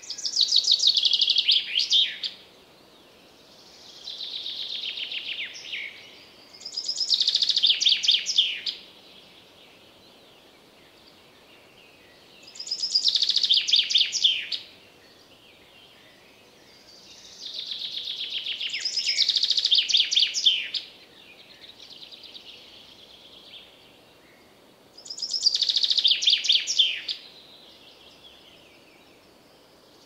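Common chaffinch singing: five loud songs of about two seconds each, roughly six seconds apart, each a fast run of notes falling in pitch. Fainter songs come in between the loud ones.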